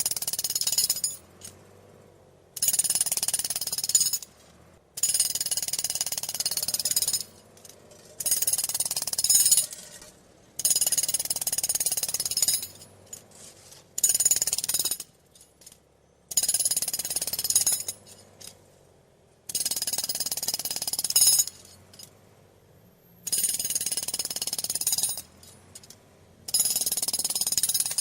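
Pneumatic road drill (jackhammer) hammering in repeated bursts of about two seconds, each followed by a short pause of about a second.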